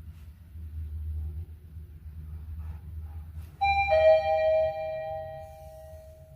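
Mitsubishi elevator chime: two notes, a higher one then a lower one a moment later, a 'ding-dong' that rings and fades over a couple of seconds, sounding as the car arrives at a floor. Before it there is a low steady hum.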